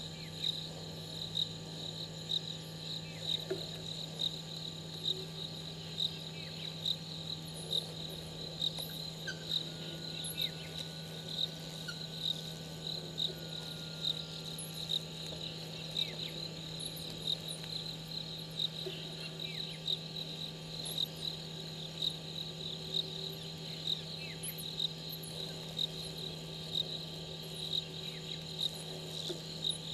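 Night insects, crickets, trilling steadily in a high continuous chorus, with a louder pulse a little more than once a second. A low steady hum sits underneath.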